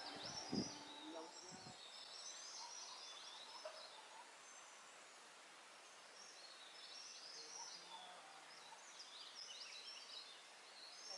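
Several forest birds singing and chirping in the high, quick, overlapping phrases of a morning chorus in montane rainforest. A couple of short low sounds come near the start.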